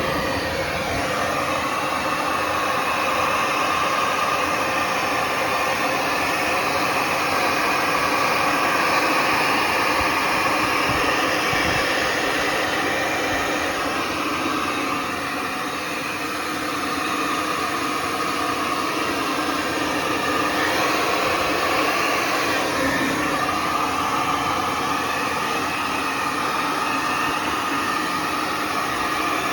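Handheld hair dryer running steadily, blowing hot air to melt the ice off a freezer's frozen coils. It dips briefly in loudness around the middle.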